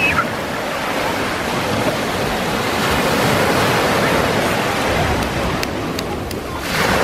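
Small waves breaking and washing up a sandy shore: a steady rush of surf that swells and eases with each wave, loudest in the middle and again near the end.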